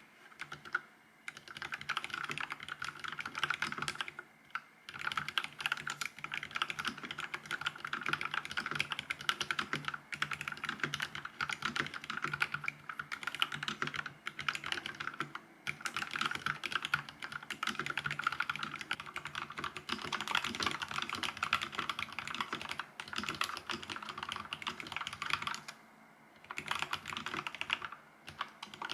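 Fast, continuous typing on a Vissles V84 wireless mechanical keyboard with linear switches, a dense run of soft key clicks broken by a few short pauses.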